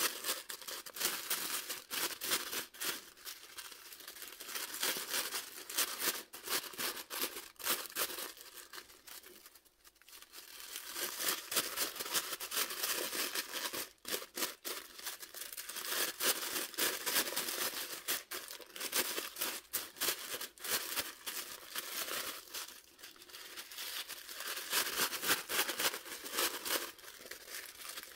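Thin tissue paper rustling and crinkling in irregular bursts as its folded layers are pulled apart and fluffed into a pom pom, with a short lull about ten seconds in.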